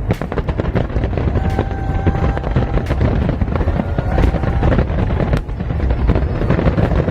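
Fireworks going off in quick succession, dense low booms with sharp crackles and pops, while show music plays with a few long held notes.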